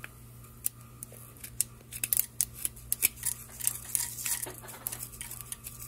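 Hot sesame oil crackling and popping in a pot, with mustard seeds, dried curry leaves and fenugreek seeds frying: irregular sharp pops, thickest in the middle. A steady low hum runs underneath.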